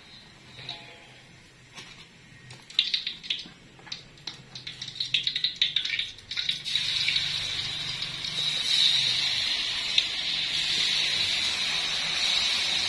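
Hot cooking oil in a wok sizzling steadily as battered banana slices for pisang goreng are slid in, the sizzle starting about six and a half seconds in. Before that, scattered clinks of metal utensils against the wok and light crackling.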